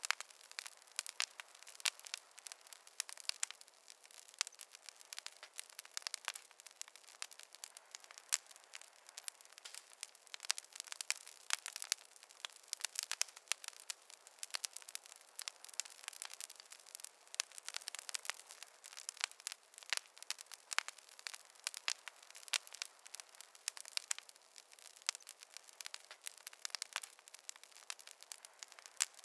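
Wood campfire crackling: a dense, irregular run of sharp pops and snaps over a faint hiss, with no low rumble.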